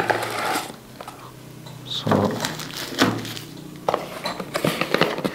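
Packaging being handled: a wrapped packet rustling as it is pulled out of a cardboard box, then several light knocks and rustles as it is set down and the box is handled again.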